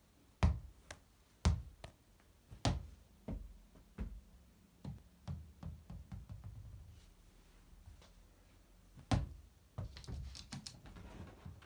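A small ball knocking and bouncing on a laminate floor, several single knocks about a second apart, then knocks coming quicker together with a low rolling rumble. Near the end comes a loud knock, then a flurry of thumps and scrabbling paws as the cat dashes across the floor after the ball.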